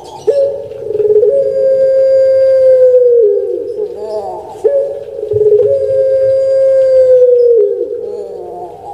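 Puter pelung (Barbary dove, Streptopelia risoria) cooing loudly: two long calls, each with a few short opening notes, then a note held at one pitch for about two to three seconds that drops away at its end.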